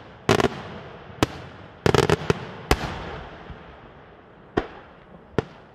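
Daylight aerial fireworks shells bursting in a string of sharp bangs, several in quick clusters in the first half and two softer ones near the end, each trailing off in an echoing rumble.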